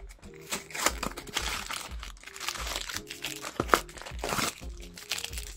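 Crinkling and crackling of blind-box pin packaging being unwrapped by hand, a string of irregular quick crackles, over quiet background music.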